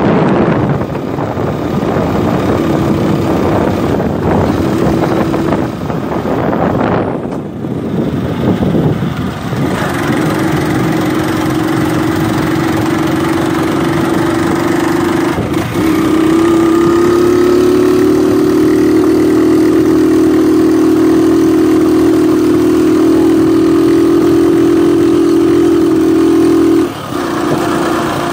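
Small motorcycle engine running steadily as the bike is ridden, with wind buffeting the microphone for the first several seconds. The engine note dips briefly about halfway through, then holds a steady, stronger tone and drops off near the end.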